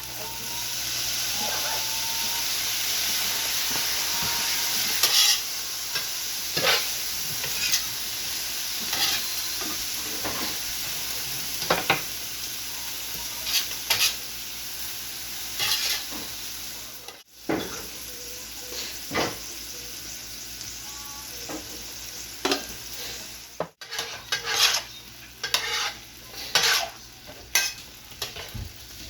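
Food sizzling on a steel flat-top griddle, a steady hiss, with frequent sharp scrapes and taps of a spatula on the griddle as the food is stirred and turned. The sound drops out briefly twice in the second half.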